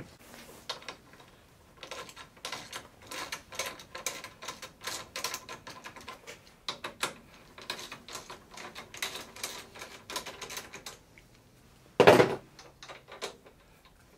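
Ratchet wrench clicking in quick runs as bolts are backed out, with a single loud metallic knock near the end.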